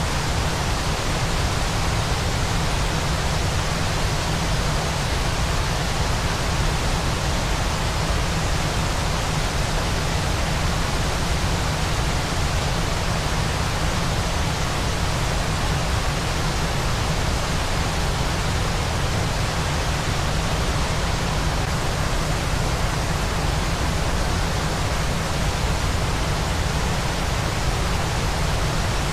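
Steady, unchanging waterfall white noise: a dense, even rush of falling water with a heavy low end and no separate splashes or events.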